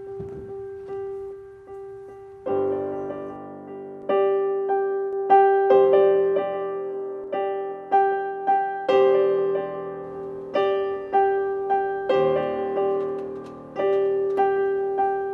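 Background piano music: one note repeated about three times a second, with chords entering about two and a half seconds in.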